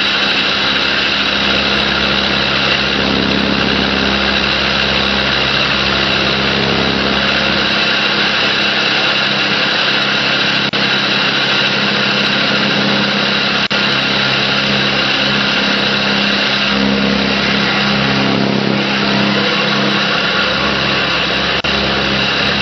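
Ultrasonic drilling machine running as its vibrating tool bit works through a glass block in abrasive slurry: a steady loud hiss with a low hum under it, unbroken throughout.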